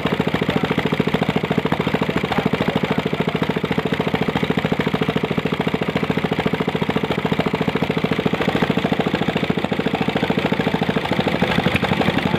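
Ryu 460 single-cylinder air-cooled petrol engine idling steadily with a fast, even firing beat, running well after its carburettor was reset to standard settings; its note shifts slightly near the end.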